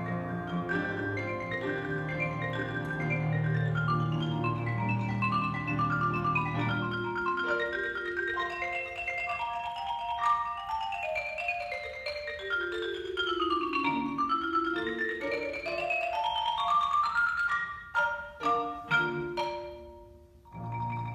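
Solo marimba played with mallets: fast runs of notes over low bass notes, with a long run falling and then rising about two-thirds of the way through. A few sharp accented strikes come near the end, then a short pause and a final note.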